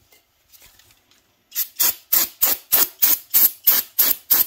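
Aerosol degreaser sprayed onto a new clutch disc in about a dozen short, even hissing bursts, about three a second, starting about a second and a half in.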